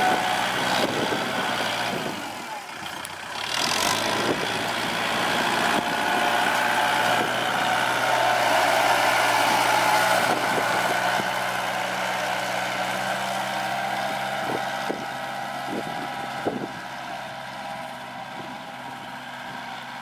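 Heavy diesel engine of earthmoving machinery running steadily, with a high whine over it and a few short knocks in the second half.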